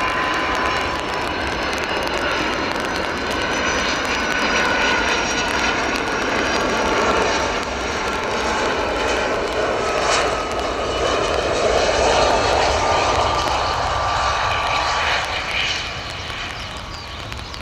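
Boeing 757-200F freighter's jet engines on landing, a steady rush of engine noise with a whine that glides slightly lower as it passes. It is loudest around twelve seconds in and fades near the end.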